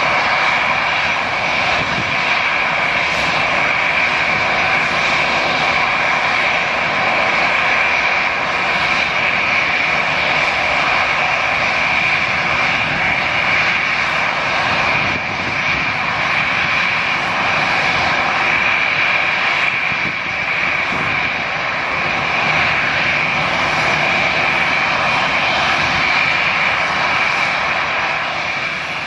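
Boeing 737-800's CFM56-7B turbofan engines at takeoff thrust as the airliner climbs away: a steady, loud jet noise with a strong, constant high tone running through it.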